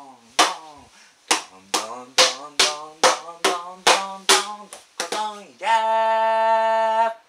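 A man's voice calling out a taiko drum rhythm: about a dozen short, sharp, pitched calls at roughly two a second, each with a crisp hit-like attack and a falling pitch. Near the end comes one long held shout of about a second and a half.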